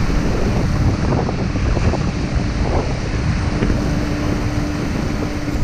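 Waves breaking and rushing along the hull of a small cargo ship under way in rough sea, with wind buffeting the microphone, a dense steady roar. A faint steady hum runs underneath.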